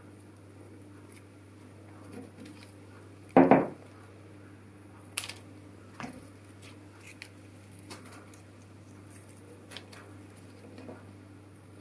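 Light taps and rustles of cut foliage stems being handled and set down on a paper-covered worktable, with one louder thump about three and a half seconds in, over a steady low hum.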